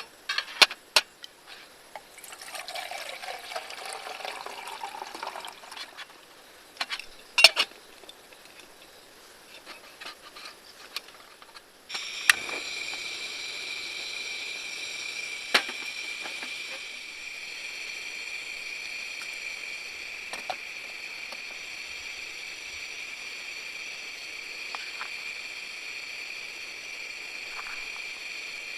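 Liquid poured for a few seconds among sharp clicks and clinks. About twelve seconds in, a steady high-pitched buzzing drone starts suddenly and holds.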